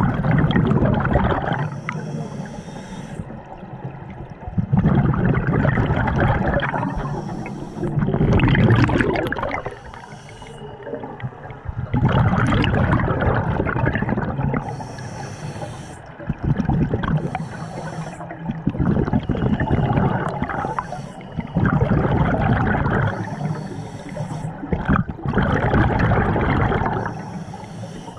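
Scuba diver breathing through a regulator underwater: a short hiss on each inhale alternating with a low gush of exhaled bubbles, a breath every three to four seconds.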